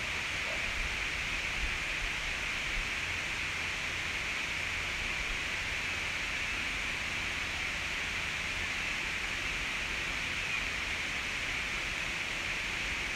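Steady outdoor background hiss with a low rumble underneath, unchanging throughout, with no distinct events.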